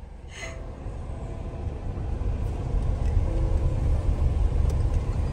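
Low rumble of a car's engine and tyres heard from inside the cabin, growing louder as the car drives off, with a brief hiss about half a second in.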